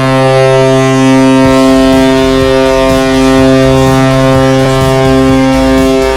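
Vegas Golden Knights arena goal horn sounding one long, loud, steady blast.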